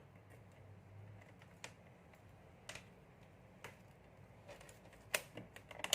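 Scattered sharp clicks, a few single ones about a second apart and then a quick run of them near the end: an analog multimeter's rotary range selector being turned to the ×1 range for a continuity check.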